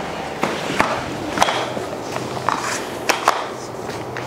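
A hammer striking a tapping block against the edge of a vinyl plank: about seven sharp, irregularly spaced taps, knocking the plank's click-lock joint closed.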